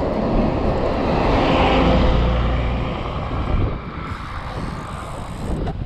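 Wind rushing over a bike-mounted camera microphone with the rumble of mountain bike tyres rolling fast down a dirt trail, swelling in the first seconds and easing off later.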